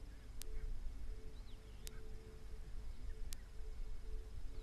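Outdoor natural ambience: a low rumble under a wavering hum that comes and goes, a sharp tick about every second and a half, and a few faint bird chirps.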